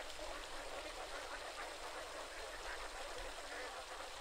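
A large flock of domestic ducks quacking steadily, many calls overlapping into a continuous chatter.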